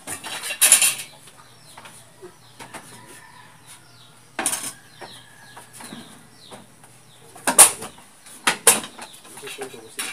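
Wooden boards and tools knocking and clattering during hand carpentry work, with a few irregular loud strikes: one about half a second in, one near the middle, and a quick cluster near the end, with small clicks between.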